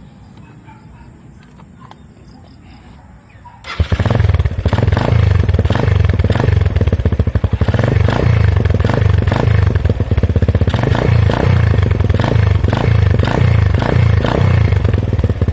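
A motorcycle's single-cylinder engine, breathing through an Apido aftermarket exhaust whose end cover has been cut shorter for a crisper note, comes in loud about four seconds in. It then runs steadily with a fast, even pulsing beat.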